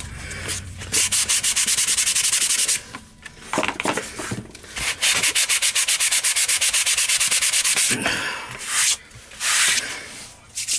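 Sanding block rubbed quickly back and forth over a foam blade, fast even strokes in two long runs with a short break between, then a few slower, separate strokes near the end.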